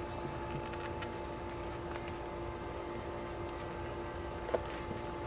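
Steady background hum with faint ticks of objects being handled, and one short sharp click about four and a half seconds in.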